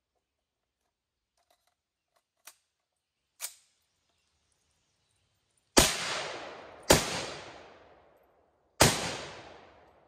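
Three rifle shots from a Maxim Defense MDX 508 firing 7.62x39 steel-case ammunition, about a second apart and then two seconds apart, each ringing out in a long echo through the woods. Two faint sharp clicks come a few seconds before the first shot.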